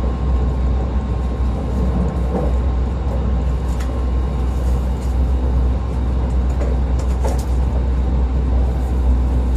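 JR West 681 series EMU motor car running at steady speed, heard aboard: a constant heavy rumble of wheels and running gear with a steady whine from the three-phase induction traction motors and gearing, and a few sharp clicks about four and seven seconds in.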